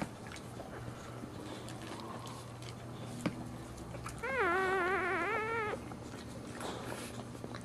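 A newborn boxer puppy crying: one high, wavering squeal about a second and a half long, midway through. Around it, faint wet clicks from the mother boxer licking the pups.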